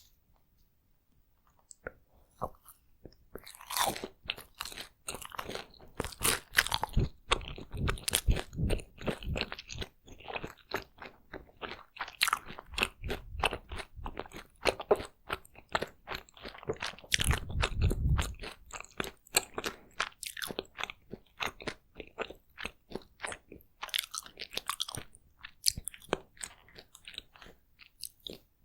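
Close-miked eating sounds of takoyaki being bitten and chewed: a dense run of sharp, wet mouth clicks and crunches, starting after a near-quiet first two or three seconds.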